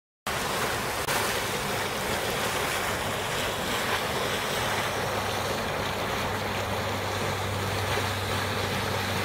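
Steam venting from a volcanic fumarole: a steady rushing hiss that starts and stops abruptly.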